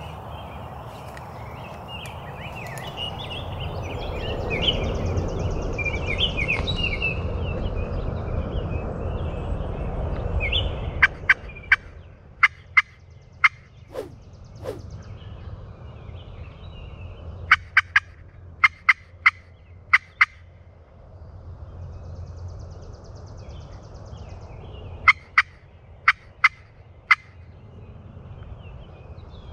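Turkey yelping: three runs of five or six sharp, evenly spaced yelps, the first about eleven seconds in. Before them, songbirds chirp over a steady rushing sound.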